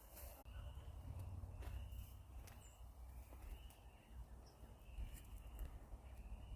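Faint outdoor ambience: a low rumble like wind on the microphone, with short high chirps repeating every half second or so.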